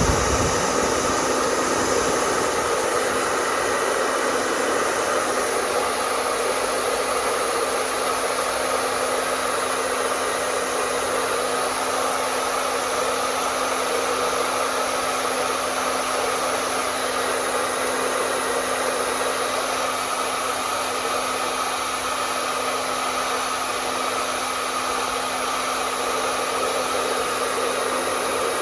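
Hair dryer running steadily, its fan blowing with an even airy whoosh over a constant motor hum.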